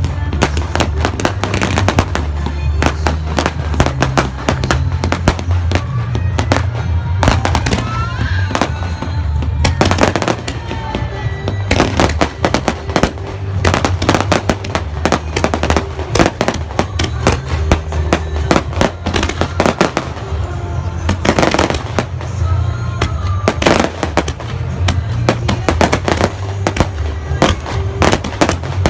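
Fireworks display: a rapid, continuous barrage of aerial shell bursts and crackling bangs, with music playing underneath.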